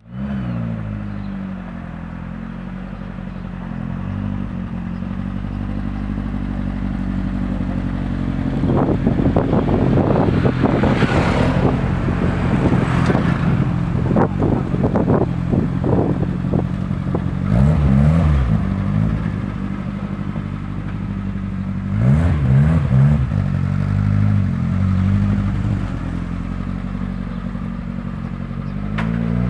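Volkswagen Kombi van's engine running loudly, with a long stretch of irregular sharp clattering in the middle and two quick blips of the throttle in the second half.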